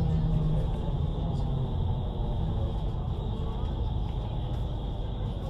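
Hess BGT-N2D (Swisstrolley 4) trolleybus running in service, a steady low rumble. A low hum in it drops away about half a second in.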